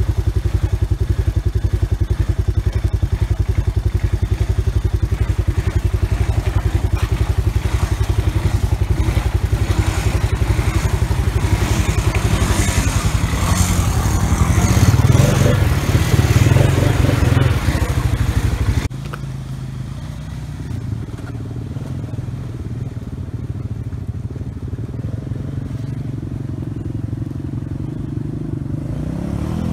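Honda ATV single-cylinder engines running in deep floodwater: a close engine runs steadily, and churning, splashing water grows louder about halfway through as a quad wallows deep. After a sudden cut about two-thirds through, a quieter, more distant ATV engine runs through the water, revving up near the end.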